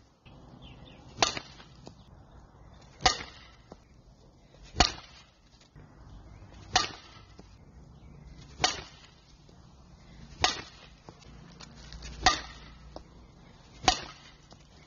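A Marucci Echo DMND composite fastpitch softball bat hitting softballs off a batting tee, swing after swing. There are eight sharp cracks, about one every two seconds.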